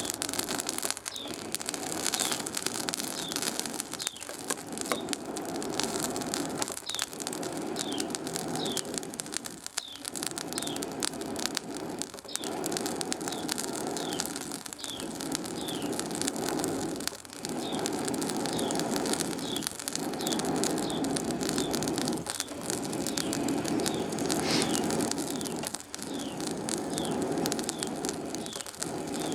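Charcoal forge burning under a blast of forced air: a rushing noise that swells and drops away briefly about every two and a half seconds, with the coals crackling throughout.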